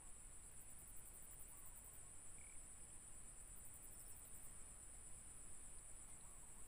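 Insects chirring steadily in a high, finely pulsing drone, with a second, higher trill that starts and stops every couple of seconds; otherwise quiet.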